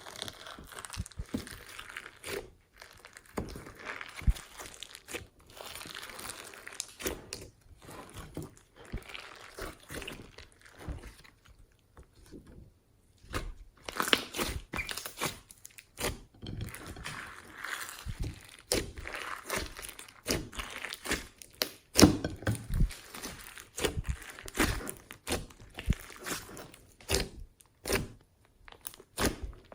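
Glossy slime being squished and worked by hand, making irregular sticky crackles and pops, with a short pause about twelve seconds in.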